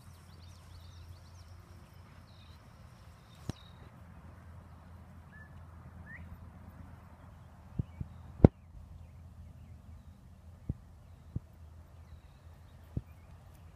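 Wind rumbling on the microphone, with a few scattered sharp taps, the loudest about eight and a half seconds in, and a couple of faint bird chirps near the middle.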